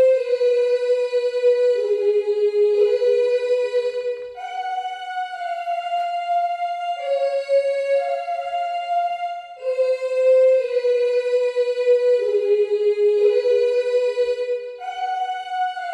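A single lead melody in long held notes, played live on a Native Instruments Maschine groovebox, with no drums or bass under it. The same phrase of about ten seconds starts over roughly ten seconds in.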